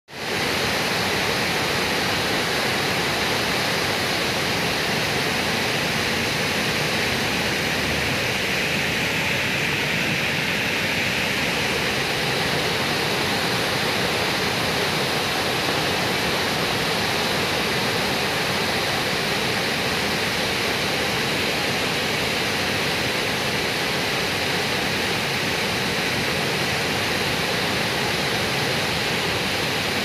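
Water spilling over the crests of a concrete barrage weir and falling into the channel below: a steady, even rush of falling and splashing water.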